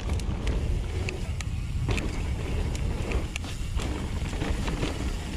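Mountain bike, a Nukeproof Mega 290, riding fast down a rough downhill trail: a constant low rumble of tyres and wind on the camera's microphone, broken by irregular sharp clicks and knocks as the bike goes over bumps.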